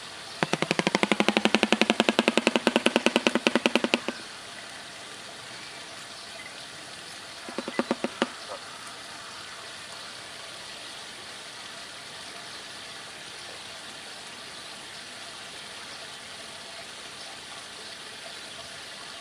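Shoebill clattering its bill: a rapid run of clacks lasting about four seconds, then a second, shorter burst about eight seconds in.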